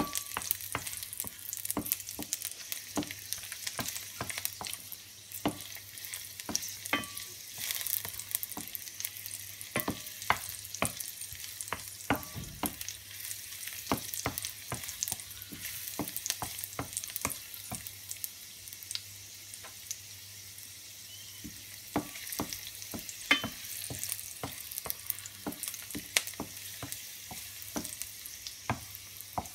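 Sliced garlic sizzling and crackling in hot olive oil in a stainless steel frying pan, with a wooden spoon stirring and scraping against the pan.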